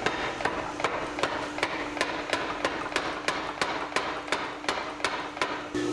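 Little Giant mechanical power hammer striking a red-hot bar held in tongs on its anvil die: a steady run of sharp blows, about three a second, that stops just before the end.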